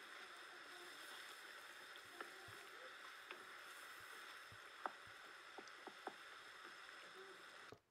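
Faint steady hiss of a clay pot of greens simmering over a wood fire, with a few scattered small ticks in the middle stretch; the sound cuts off just before the end.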